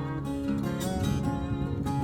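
Background music of strummed acoustic guitar, steady in level.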